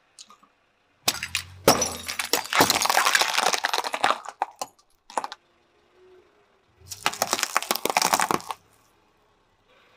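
Glass volumetric flasks full of liquid cracking and shattering under a car tyre: a dense run of cracks and crunches lasting about three and a half seconds. About seven seconds in comes a second, shorter crackling crunch as the tyre rolls over small rose-shaped trinkets.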